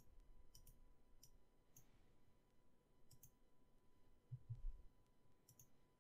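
Faint computer mouse clicks, several in quick pairs, over near-silent room tone. A couple of soft low thumps come about four and a half seconds in.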